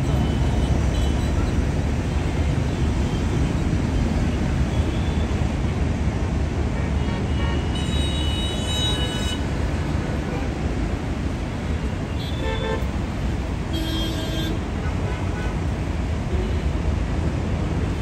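Steady low rumble of road traffic, with vehicle horns honking briefly about eight, twelve and fourteen seconds in.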